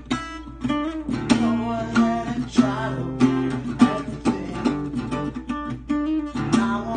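Acoustic guitar strummed in repeated chords: an instrumental break in a song.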